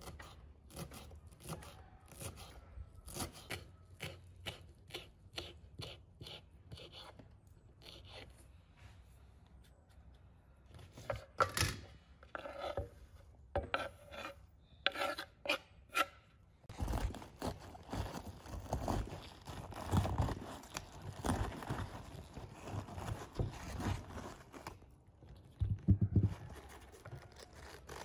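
Kitchen knife chopping fresh herbs on a wooden cutting board in quick, light, evenly spaced strokes, a few a second, then louder, sparser knocks. About two thirds of the way in it gives way to a dense, continuous scraping and rustling with low thumps.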